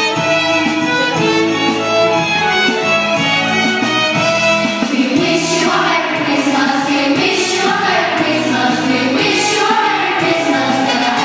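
Music with an instrumental opening of steady held notes, joined about five seconds in by a choir singing.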